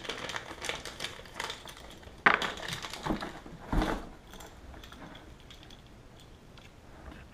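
Small plastic bag of toilet seat hardware being crinkled and rummaged, with small parts clicking together. A sharp knock comes a little after two seconds in and another just before four seconds; the handling is quieter after that.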